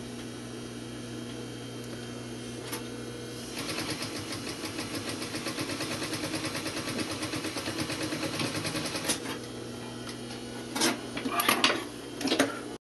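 Industrial sewing machine stitching a close edge stitch on a cloth cap: after a few seconds of steady hum, it starts about three and a half seconds in and runs fast and evenly for about six seconds, then stops. A few sharp clicks and knocks follow near the end.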